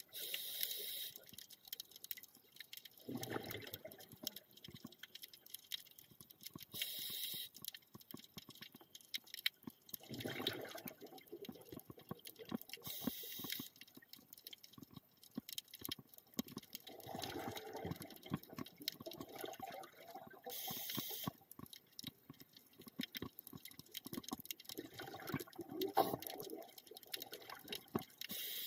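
Scuba diver breathing through a regulator underwater: short hissing breaths alternating with gurgling bursts of exhaled bubbles, a full breath cycle about every seven seconds.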